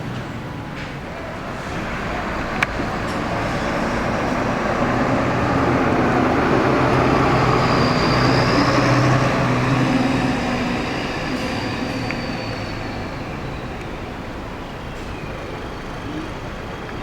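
A large bus passing close by: its engine and road noise swell over several seconds, peak in the middle, then fade away. There is a single sharp click early on.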